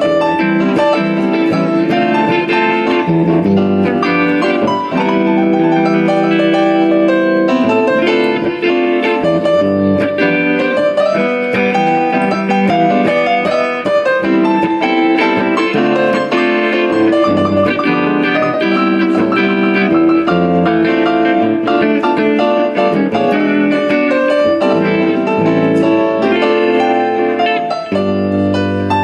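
Live electric guitar and a Yamaha S80 keyboard set to a piano sound, playing together through amplifiers: chords with melodic lines running over them.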